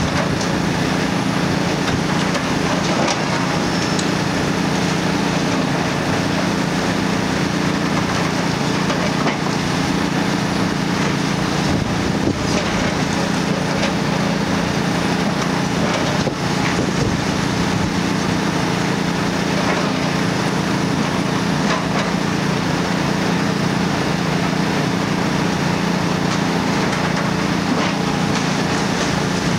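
Kobelco SK400DLC-10E high-reach demolition excavator's six-cylinder Hino diesel engine running steadily as the hydraulic demolition boom works, with a few faint knocks.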